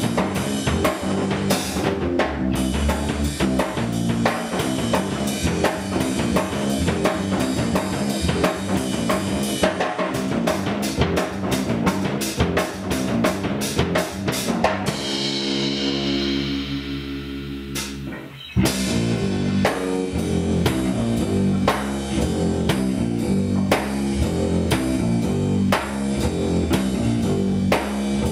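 Rock instrumental: a guitar riff over a driving drum kit. About halfway through, the drums drop out and a single held chord rings out and fades for a few seconds, then the riff and drums crash back in together.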